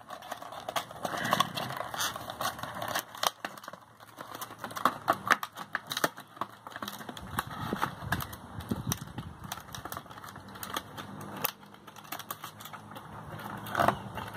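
Cardboard box and clear plastic blister pack handled and pulled open: a run of irregular clicks, crackles and rustles.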